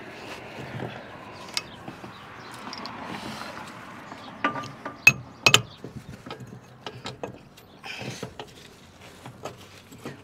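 Steel tools and parts clinking and tapping as they are worked by hand on a tow truck's boom cylinder mount: a few sharp metal clinks about halfway through, then lighter scattered clicks, over a steady background hiss.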